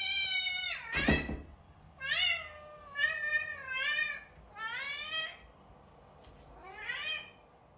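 A domestic cat meowing over and over, about six meows each rising and falling in pitch, with a brief loud noise about a second in.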